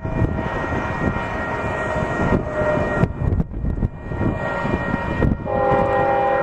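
Union Pacific intermodal freight train running with a loud, uneven low rumble. About a second before the end, a locomotive air horn starts sounding a steady multi-note chord.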